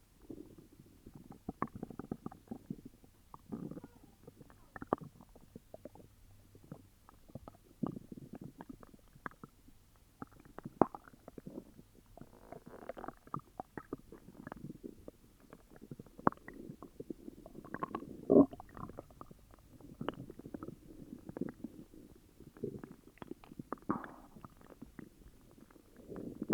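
Human stomach growling and gurgling from an upset stomach: irregular low rumbles broken by many short squelching pops, the loudest about eighteen seconds in.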